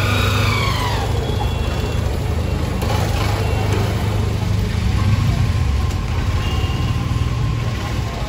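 Steady low hum of motor-vehicle engines idling. A faint, steady thin whine joins about five seconds in.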